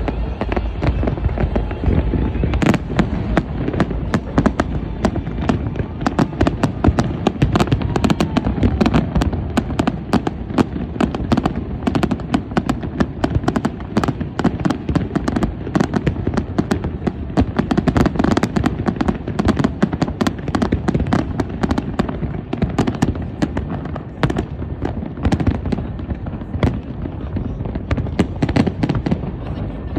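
Fireworks going off in a dense, continuous barrage: many rapid crackling bangs over a steady low rumble.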